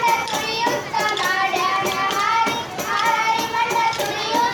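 A group of girls singing a folk song together, with dance sticks clacked in a steady beat, a little under three strikes a second.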